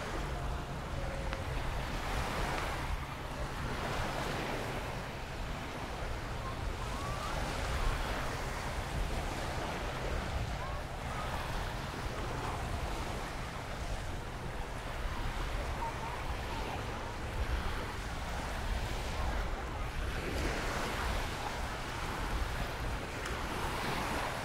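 Surf washing on a sandy beach in rising and falling washes, with wind rumbling on the microphone.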